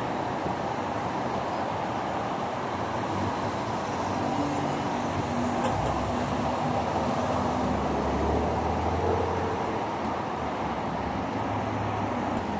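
Steady road traffic on a multi-lane city road: tyre noise and engines of passing cars. The low engine rumble swells louder between about four and ten seconds in, then eases.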